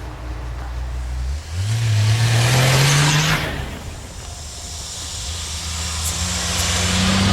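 Off-road 4x4 engine revving: the engine note jumps up about a second and a half in and climbs for two seconds, falls back, then slowly builds again near the end.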